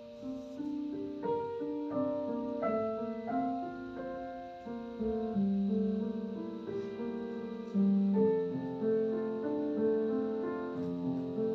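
Background solo piano music: a slow melody of held notes changing about once a second.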